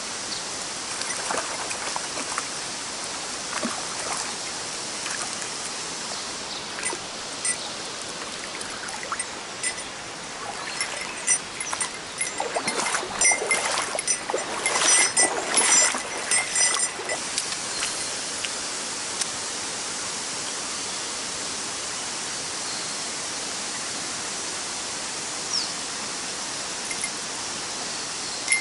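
Mountain stream water rushing steadily, with a cluster of louder clatters and splashes about halfway through.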